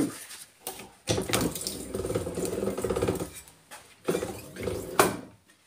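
Hand-cranked Warco slip roll being turned, with a metallic clatter from its rollers and gears as a sheet-steel cone blank is fed through. The clatter comes in two spells, about two and a half seconds and then about one second, with a sharp click near the end.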